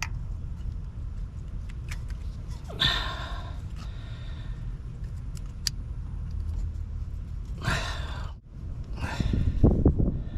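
A person breathing out hard three times, the last the loudest, over a steady low rumble, with a few faint clicks of parts being handled.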